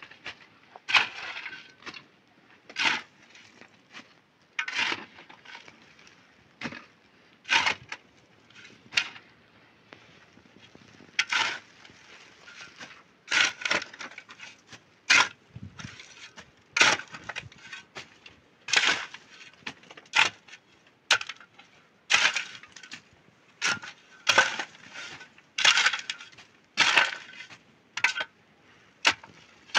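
A shovel blade scraping and digging into dry, stony earth in short, irregular strokes every second or two.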